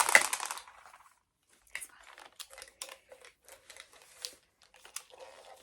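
Thin plastic candy containers cracking and crinkling as they are pried open by hand: a loud crackle at the start, then after a short pause a run of lighter clicks and crinkles.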